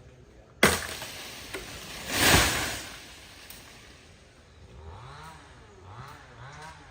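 A sharp crack, then a loud rushing crash peaking about two and a half seconds in. After that a chainsaw engine runs with its pitch rising and falling in a steady rhythm, a little more than once a second.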